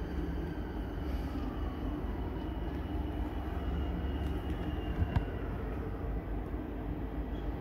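Double-deck electric passenger train approaching and pulling into the station: a steady low rumble with a faint high whine. A single sharp click a little after five seconds in.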